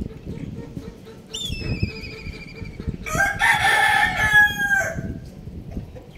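A rooster crows once, about three seconds in, a loud call held for about two seconds that drops away at the end. Shortly before it comes a thinner, higher wavering call that falls in pitch.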